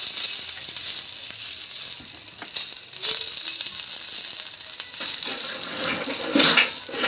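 Sij leaves coated in mustard oil sizzling steadily as they heat in a pan, with small crackles and a louder scrape near the end.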